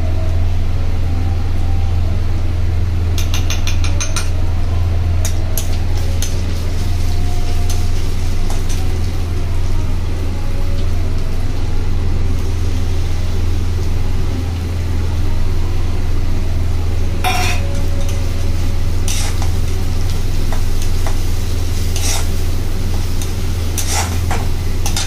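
A steel spatula stirring and scraping in a kadai as spice paste with bay leaves and dried red chillies fries with a light sizzle. There are sharp clinks of metal on the pan, a quick run of ticks early on and a louder clink about two-thirds through, over a steady low hum.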